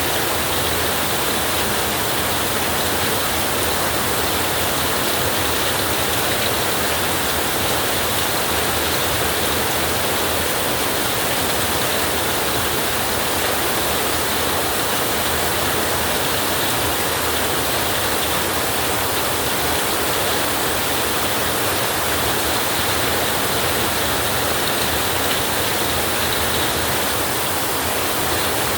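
Steady heavy rain: a dense, even hiss that holds the same level throughout, with no thunder.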